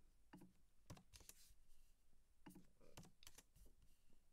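Faint computer keyboard typing and mouse clicks, an irregular run of short, sharp taps.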